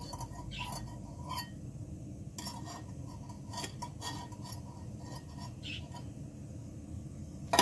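Lightweight aluminium camping pot and its folding wire handles clinking and knocking as it is lifted off a gas canister stove and handled, over a steady low rush. A sharp click, the loudest sound, comes right at the end.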